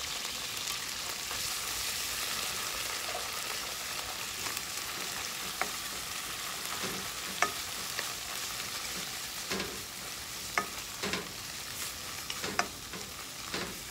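Canned tuna and sliced onions sizzling in butter and a little oil in a nonstick frying pan, a steady frying hiss. A wooden spoon stirs and clacks against the pan, the clacks coming more often in the second half.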